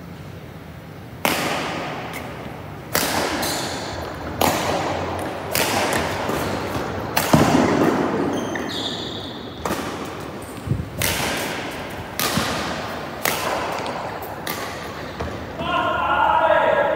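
Badminton rackets striking a shuttlecock in a rally: sharp hits roughly every one to two seconds, each echoing in a large hall.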